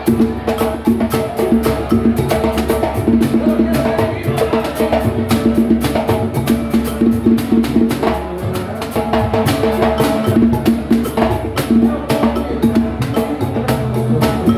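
Live samba pagode band playing: dense, fast hand percussion with a steady rhythm over held pitched accompaniment.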